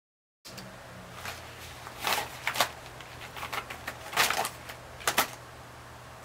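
Computer keyboard keys being typed on in short, irregular clusters of clicks, over a faint steady hum. The sound starts about half a second in, after a moment of silence.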